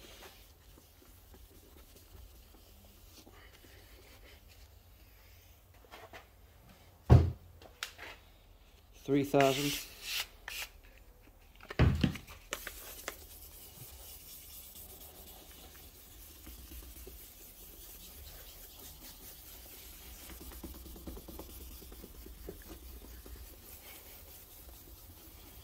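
Hand wet sanding of a painted car wing mirror cover with 2000-grit wet-and-dry paper: a faint, steady rubbing hiss that grows a little stronger in the second half. A loud knock comes about seven seconds in, then a short pitched sound around nine to ten seconds, then another knock near twelve seconds.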